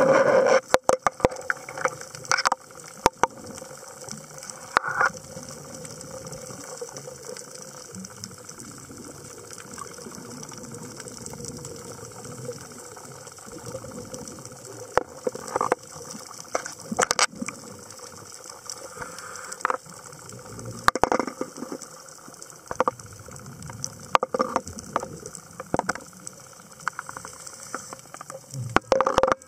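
Underwater scuba dive audio: rushing bursts of bubbles every few seconds, the diver's exhalations, with scattered clicks and crackle over a steady underwater hiss.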